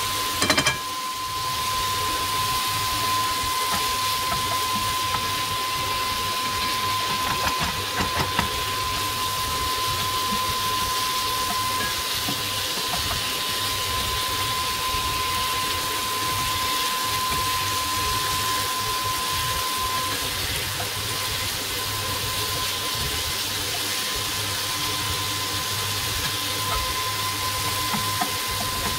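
Diced chicken and onion sizzling steadily in a nonstick frying pan, with a few knocks and scrapes of a plastic spatula about half a second in and again around eight seconds. A thin steady whine runs underneath.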